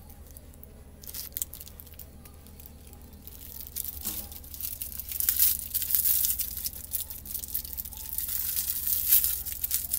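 A crinkly foil cat toy crackling and crinkling as it is squeezed in a hand and bitten by a cat. It starts about a second in and grows louder from about halfway.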